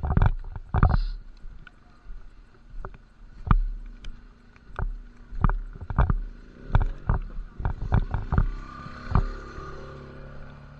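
A series of irregular knocks and thumps close to the microphone, over a low rumble, with a faint steady hum near the end.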